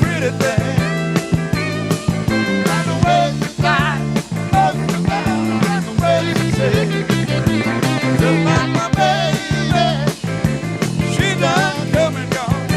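Live rock band playing an instrumental passage: a lead line with bent, wavering notes over steady bass and drums.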